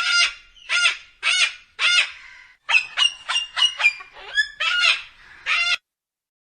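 A bird calling repeatedly: four spaced calls, then a quicker run of about eight shorter ones, cutting off about a second before the end.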